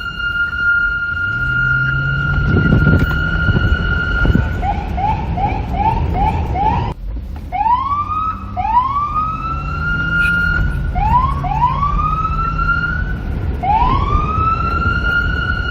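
Police car siren: a steady high tone for about four seconds, then a run of quick rising chirps, a short break, and several slower rising sweeps that level off at the top, over a low rumble.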